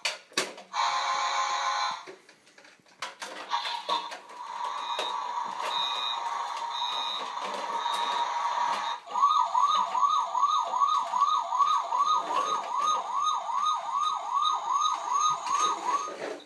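Electronic siren from a battery-powered toy emergency truck: a steady tone with short beeps over it, then about 9 s in a fast wailing siren of roughly two and a half rises a second, which stops just before the end.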